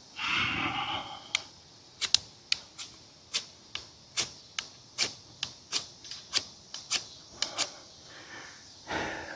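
The spine of an Ozark Trail fixed-blade knife struck again and again down a ferrocerium rod, a quick run of short, sharp scrapes at about two or three a second. The strikes are not throwing enough sparks, which the owner puts down to a spine that is not sharp enough.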